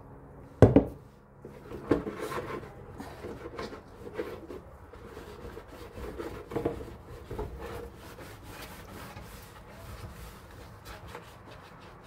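White plastic ice cube tray handled and scrubbed with a scouring sponge in a stainless steel sink. Two sharp knocks come in the first two seconds, then irregular clattering, rubbing and scraping.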